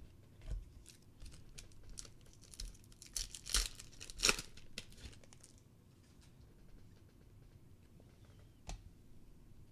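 A foil Prizm World Cup trading-card pack being torn open, its wrapper crinkling and crackling for a few seconds and loudest around four seconds in. Then quieter card handling, with one sharp tap near the end.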